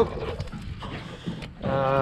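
A man's voice giving a short rising sound at the start, then a drawn-out held vowel about a second and a half in, with soft rustling and knocks of gear being handled in a plastic chilly bin between.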